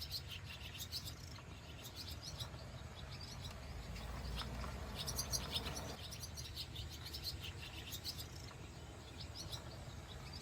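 Small birds chirping and calling repeatedly in short high notes, over a steady low background rumble.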